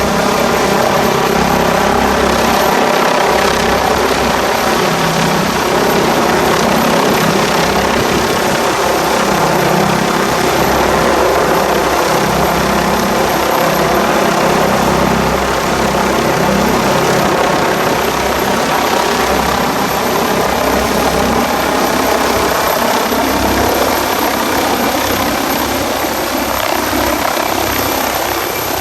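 Doctor-Heli medical helicopter's turbine engine and rotor running steadily close by, with strong wind buffeting the microphone.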